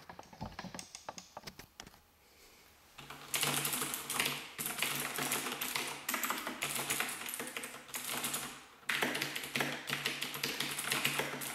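Razer BlackWidow mechanical keyboard with Cherry MX Blue switches being typed on: a few scattered light key presses, then fast, continuous, pretty loud clicking keystrokes that stop briefly once before carrying on.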